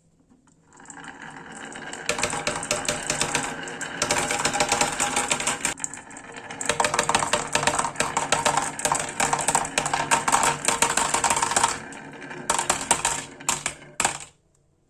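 Many marbles rolling and clattering down a marble run track in rapid, dense clicks. It starts about a second in, dips briefly near the middle, thins to a few separate clicks and stops abruptly near the end.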